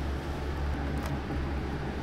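Steady low hum and rush of running kitchen machinery, with one light click about a second in.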